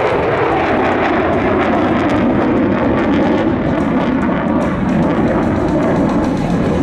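Jet aircraft engines running with a loud, steady noise.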